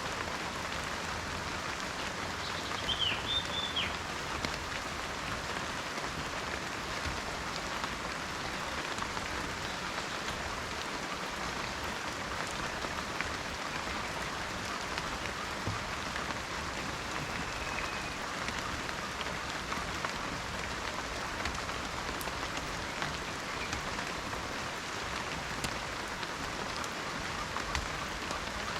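Steady rain falling on forest foliage, an even hiss with scattered drops. A bird gives a short chirp about three seconds in and a fainter whistle around eighteen seconds in.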